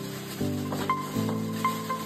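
Background music of sustained chords that change every second or so, with light ticking percussion.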